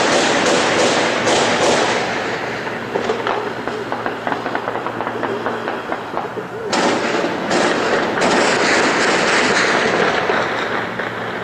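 Heavy automatic gunfire across a city: long bursts of fire, with many scattered single shots between them and a fresh run of bursts about seven seconds in.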